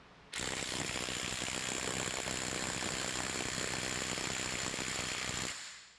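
DeWalt DCF850 impact driver converted to a half-inch square-drive anvil, hammering continuously on a bolt in a torque-test fixture. The rapid impacts and a thin high whine start about half a second in and stop near the end, a five-second working-torque run under load.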